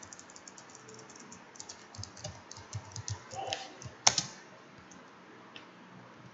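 Computer keyboard keys clicking in a quick, uneven run of keystrokes, with one louder key strike about four seconds in, then only a few faint clicks.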